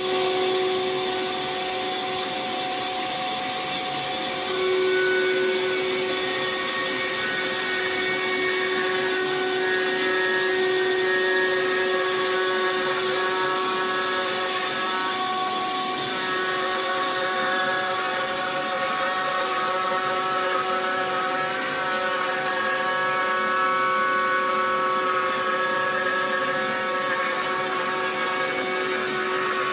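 Router with a compression carbide trimming bit running steadily with a high whine, flush-trimming the edge of a wooden countertop.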